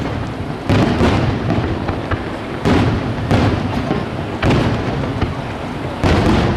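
Aerial firework shells bursting in a starmine barrage: about five sudden booms at uneven intervals, each trailing off in a long rolling rumble like thunder.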